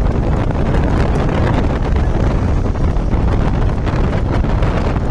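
Heavy wind buffeting the microphone, with a low steady rumble, as when recording from a moving vehicle.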